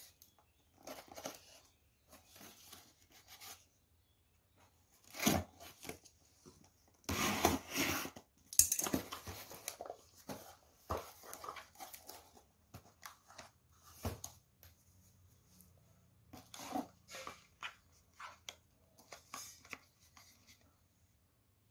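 A cardboard parcel being torn open and unpacked by hand: irregular bursts of tape and cardboard tearing and the rustle of flaps and paper packing filler, loudest a few seconds in.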